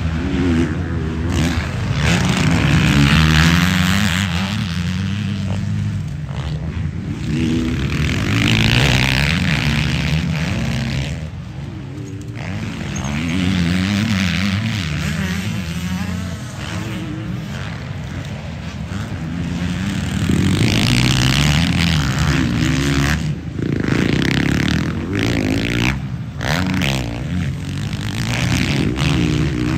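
Motocross dirt bikes racing around a dirt track, their engines revving up and down through the gears. The sound swells louder several times as bikes pass close by.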